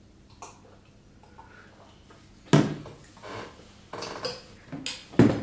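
A spoon clinking and scraping against a plate, and a drinking glass set down on the table. Several sharp knocks, the loudest about two and a half seconds in and another near the end.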